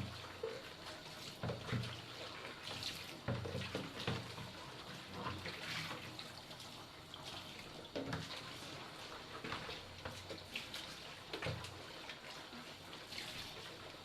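Kitchen tap running into a sink, with irregular splashes and knocks as things are handled and rinsed under the water.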